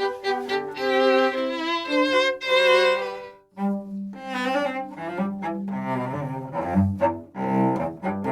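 Baroque chamber music from a string trio of two violins and cello, bowed notes with vibrato. A brief pause comes about three and a half seconds in, after which lower cello notes sound under the violins.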